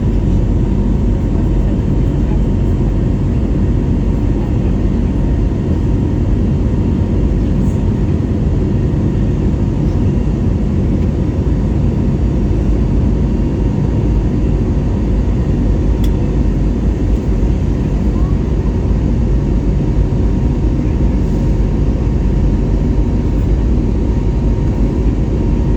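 Airbus A321neo cabin noise heard from a seat over the wing: a loud, steady jet-engine rumble and rushing air, with a faint steady tone sitting above it.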